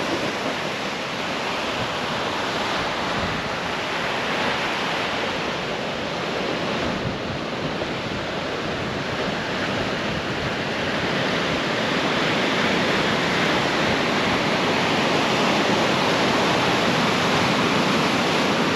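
Ocean surf breaking on a sandy beach: a steady wash of waves that grows a little louder in the second half.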